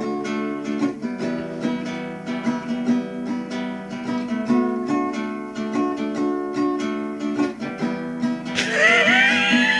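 Music: an instrumental passage with a strummed acoustic guitar in a steady rhythm. A high wavering voice-like sound joins in over the last second or so.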